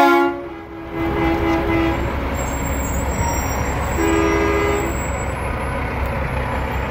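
Semi truck air horn blowing twice over the low rumble of slow-moving diesel rigs: one blast starting sharply at the outset and lasting about two seconds, and a shorter one about four seconds in.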